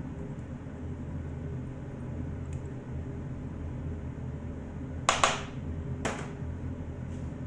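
Steady low mechanical hum, like a fan running. About five seconds in come two short sharp clacks, the first a quick double, and a second later one more.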